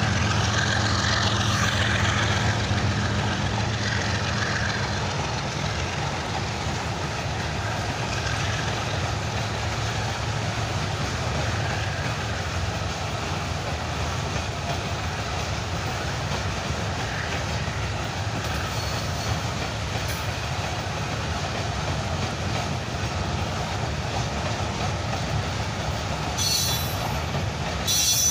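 Goods train of hopper wagons and container wagons rolling past, a steady rumble of wheels on rail. A few brief high-pitched squeals come near the end.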